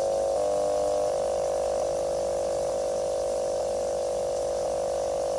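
Steady mid-pitched electronic hum from a laptop, several tones sounding together, with faint ticks about once a second.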